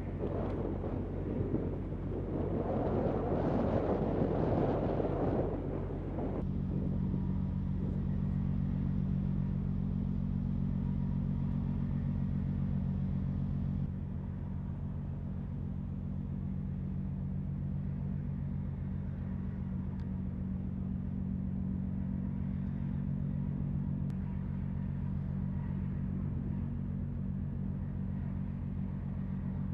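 Wind buffeting the microphone for the first few seconds, then a steady low mechanical hum of the amphibious assault ship's machinery, several low droning tones held level. It drops a little in loudness about halfway through.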